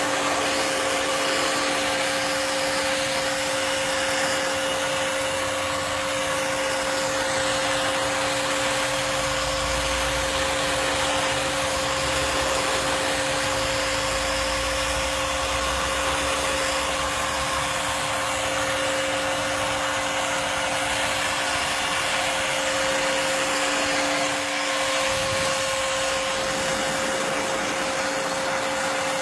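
Electric heat gun running steadily: an even rush of blown air with a steady hum.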